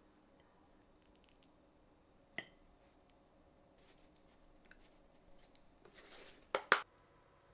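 Small handling sounds in a quiet room: a light tap with a brief ring about two and a half seconds in, a few faint ticks and a soft rustle, then two sharp clicks in quick succession near the end.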